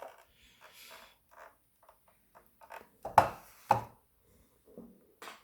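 Plastic toy car being handled: scattered light clicks and taps, with two sharper knocks about half a second apart a little past the middle.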